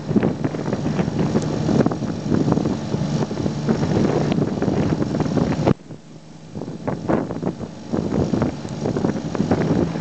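Wind buffeting the microphone in gusts, over the steady hum of the rescue boat's engine as it pulls on the tow line. The gusts drop away abruptly a little past halfway and pick up again about two seconds later.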